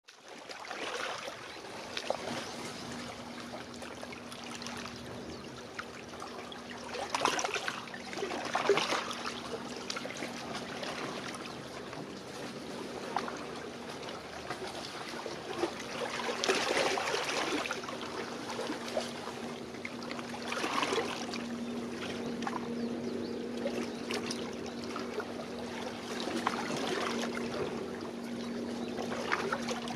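Small waves washing and lapping onto a shallow beach, surging in several times, over a low steady engine drone from a boat out on the bay that grows stronger in the second half.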